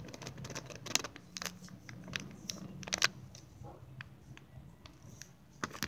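Cornstarch being shaken and squeezed out of a plastic bag into a plastic lid: irregular crunching and crackling of the powder with crinkling of the bag.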